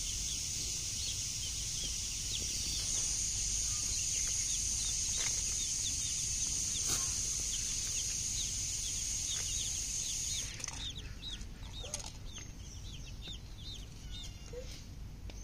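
Baby chicks peeping, many short high chirps in quick succession, over a steady high-pitched whine that cuts off suddenly about ten seconds in.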